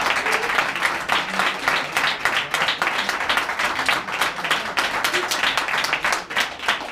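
Audience applauding: many hands clapping in a dense, irregular patter at a steady level.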